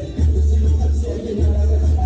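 Dance music for a Zumba class playing loudly, with a heavy bass line.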